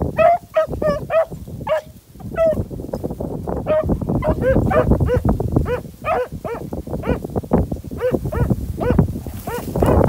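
Beagles baying in a steady run of short yelping calls, two to three a second, over low wind rumble on the microphone: hounds giving tongue as they work a scent during a hunt.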